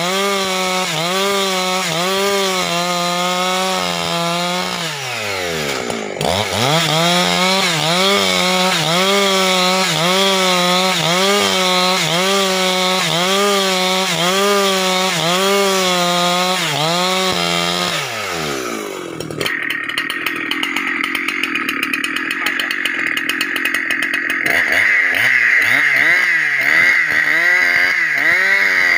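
Husqvarna 365 two-stroke chainsaw ripping lengthwise along a log to cut planks, engine pitch wavering under load as the bar works through the wood. About five seconds in the engine dips low and picks back up, and past the middle the sound changes to a brighter, higher-pitched whine.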